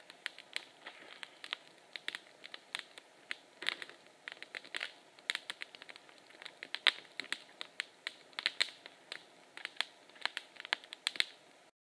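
Wood campfire crackling: irregular sharp pops and snaps, several a second, with a few stronger pops around the middle and near the end.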